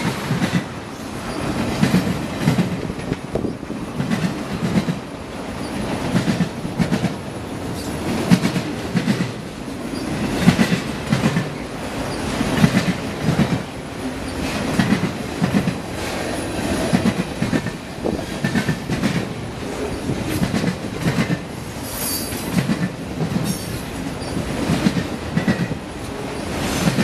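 CN freight train of autorack cars rolling past, the wheels clacking over the rail joints in a steady run of repeated thumps under a continuous rolling rumble.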